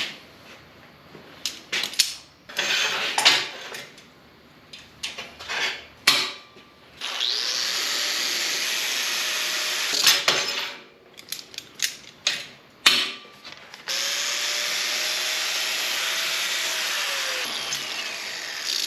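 A handheld power tool run twice, for about three and a half seconds and then about five seconds. Each time its motor spins up, runs steadily and winds down. Knocks and clatter of handling come before and between the runs.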